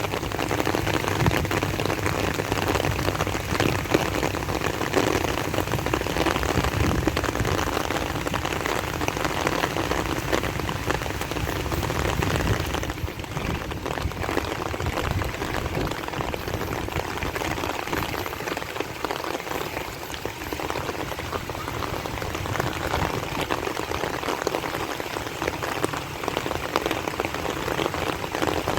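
Steady rain falling and hitting surfaces, a dense even hiss that eases slightly about halfway through.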